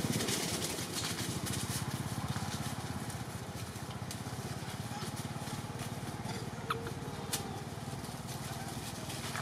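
A steady low motor rumble with a fast even pulse, like an engine running, and two short clicks about seven seconds in.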